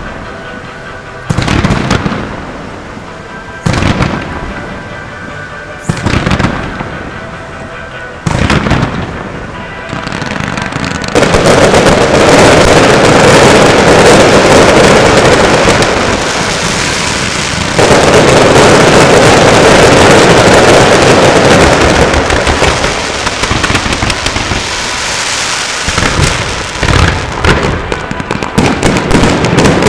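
Fireworks display: single loud shell bursts, one every two seconds or so, then about a third of the way in a dense, continuous barrage of bursts that runs for roughly fifteen seconds before breaking up into separate bangs again near the end.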